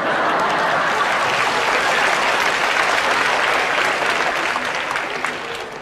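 Studio audience applauding, starting suddenly and dying away near the end.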